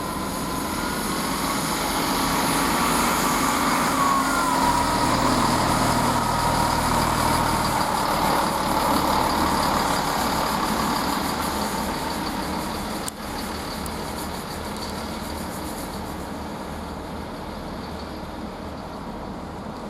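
Great Western Railway Class 165 diesel multiple unit pulling out, its diesel engines running under power along with the rumble of the wheels on the rails. The sound swells over the first half and then slowly fades, with a high whine in the first half.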